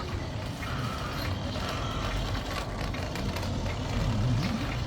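Remote-control toy Suzuki angkot's small electric motor and plastic gearbox whirring, with irregular clicking from the gears.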